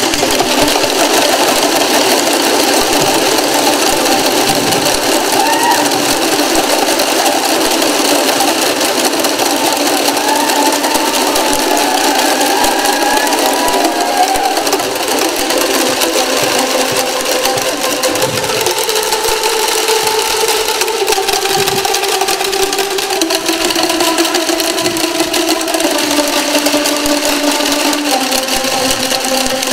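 A large group striking boomwhackers, tuned plastic tubes, fast and continuously: a dense clatter of hollow pitched taps over a few ringing notes, the notes changing about two-thirds of the way through.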